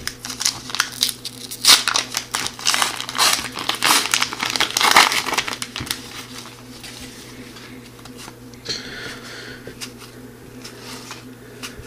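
Foil trading-card pack wrapper being torn open and crinkled, a dense crackling for about the first six seconds. Then comes quieter rustling as the cards are slid out and handled.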